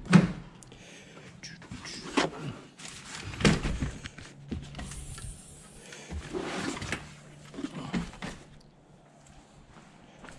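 Handling noise: a loud clunk at the start from a Jeep's rear gate, then knocks and rustling as a folded stroller is pulled out of the cargo area.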